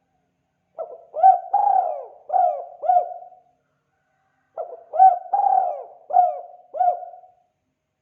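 Spotted dove (tekukur) cooing the 'kuk 2' song type: two identical phrases of about five coos each, the second starting about four seconds after the first.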